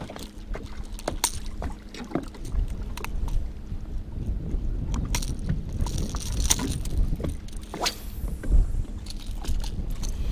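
Wind rumbling on the microphone, with scattered light metallic clicks and rattles from pliers and treble hooks as a lure is worked out of a northern pike's mouth.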